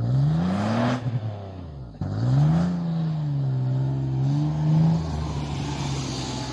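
Toyota FJ Cruiser's 4.0-litre V6 revved hard twice while the truck pushes through deep snow: the engine note climbs sharply, drops back, then rises again and holds high, wavering, for a few seconds before easing off.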